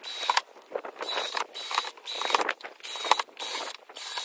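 Cordless drill-driver running in short trigger bursts with a steady high whine, about one burst a second, driving screws into wooden boards.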